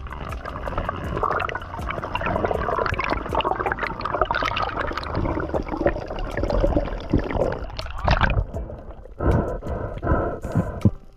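Muffled underwater sound of water moving and gurgling around the camera while diving, with faint clicks. It eases off about eight seconds in, then surges a few times near the end.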